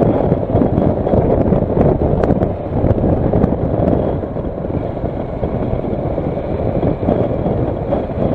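Kawasaki Versys motorcycle riding at speed, its engine and tyre noise under heavy wind rushing over the microphone; the sound eases off a little about halfway through.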